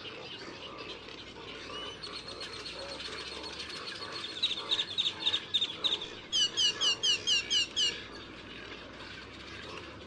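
Wild birds singing over a steady background chorus of calls. Midway comes a run of repeated notes, then a loud series of about eight clear down-slurred whistles, about five a second.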